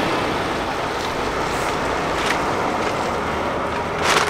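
Steady rushing of gusty wind around the tarp shelter, mixed with the running engine of a semi-trailer truck in the lot. A louder rush swells near the end.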